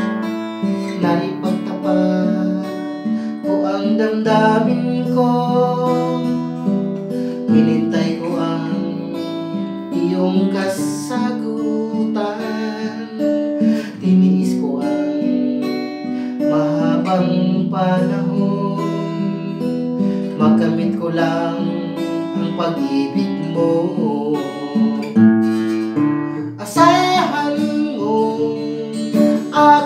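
Cutaway acoustic guitar strummed in chords, with a man singing along.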